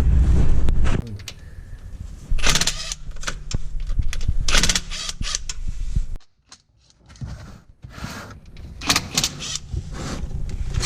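Tools working on the 8 mm transmission pan bolts of a Ford 6R80 gearbox, loosening them so the fluid can drain: short bursts of mechanical noise, broken by a brief quiet gap midway. A low rumble fills the first second.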